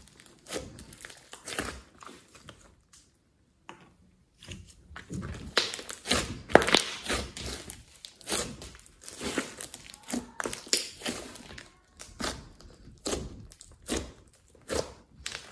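A large lump of thick, clay-mixed slime being squeezed and kneaded by hand: an irregular run of wet squelches and small air-bubble pops. There is a break of about a second and a half near the start.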